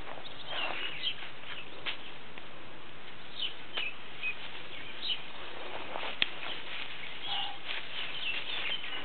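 Small birds chirping, short high calls scattered throughout over a steady hiss, with one sharp click about six seconds in.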